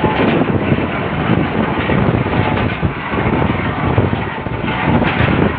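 Engine-driven borewell drilling rig running loudly and steadily, its gear wheels and winch drums turning with a dense mechanical rattle.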